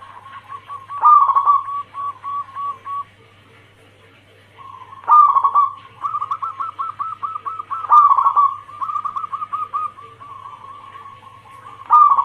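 Zebra dove (perkutut) singing its cooing song. Four phrases each open with a louder note and run on into a fast series of short staccato coos.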